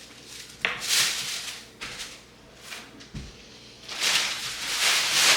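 Packaging and clothes rustling as they are handled, in several swells, with a sharp click about a second in and a soft low thump near the middle.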